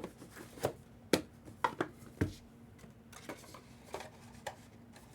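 Light, irregular clicks and taps of small objects being handled on a tabletop, about eight in all, the sharpest about a second in.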